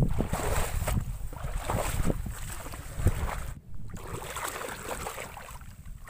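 Wind buffeting the microphone over irregular splashing and swishing of feet wading through shallow floodwater and grass.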